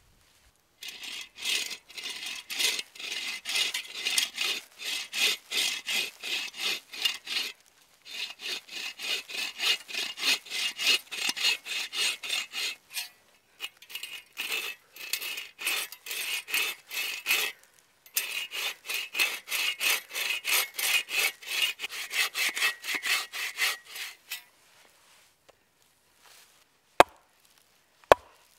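A folding bow saw cutting across a log, at roughly two to three rasping strokes a second in three long runs with brief pauses. It stops a few seconds before the end. Near the end come two sharp axe strikes into the log.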